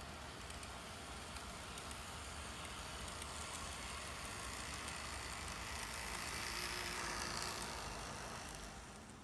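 N-gauge model train running past close by: the whirr of its motor and wheels on the track grows to a peak about seven seconds in, then fades.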